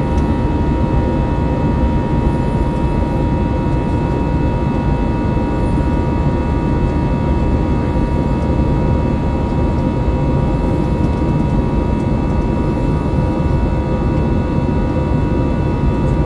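Airbus A321-200 jet engines heard from inside the cabin: a loud, steady rumble with a constant high tone running above it.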